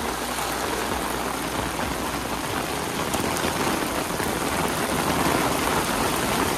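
Heavy rain pouring down on a paved street and lawns, a steady hiss of falling water that grows slightly louder near the end.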